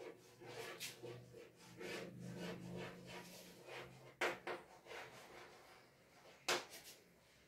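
Chalk writing on a chalkboard: short scratchy strokes with a few sharp taps, the loudest about four and six and a half seconds in.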